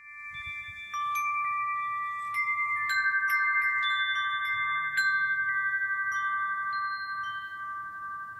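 Light metal chimes ringing: a scatter of strikes at different pitches, each note ringing on long and overlapping the others.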